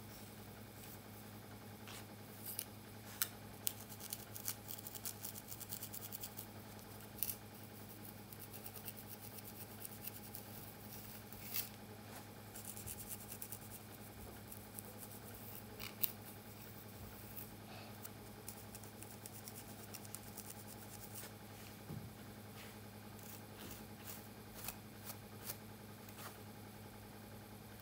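Tightly coiled hair crackling and scratching as a comb's teeth and fingers pick apart cornrow braids: scattered crisp clicks, in dense clusters at times, over a faint steady hum.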